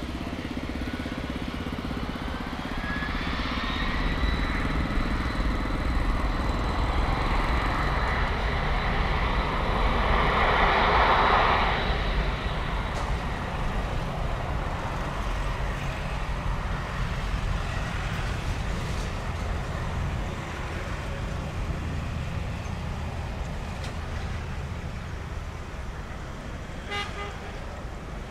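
Four jet engines of a Boeing 747-400F freighter spooling up to takeoff power. A whine rises in pitch over the first few seconds and then holds as a steady high tone over a deep rumble. The jet roar swells to its loudest about ten to twelve seconds in, then slowly fades as the aircraft rolls away down the runway.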